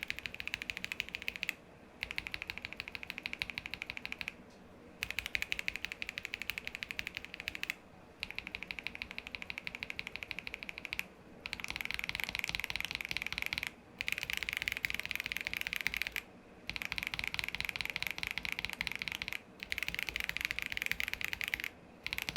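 Fast typing on a KBD67 Lite R2 mechanical keyboard fitted with KTT Peach linear switches on a polycarbonate plate, stock and lubed. The key clacks come as a dense patter in stretches of two to three seconds, broken by short gaps.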